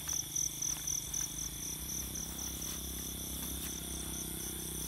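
Night insects chirping in a steady high-pitched pulse, about four chirps a second, over a low steady drone.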